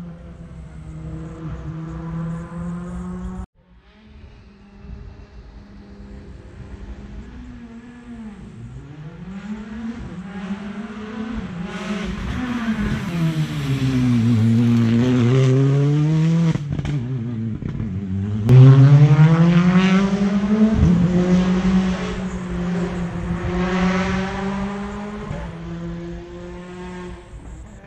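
Rally cars running flat out on a special stage, engine revs rising and falling through gear changes as they come past. The sound cuts abruptly a few times between passes, and the loudest pass starts suddenly about two thirds of the way in.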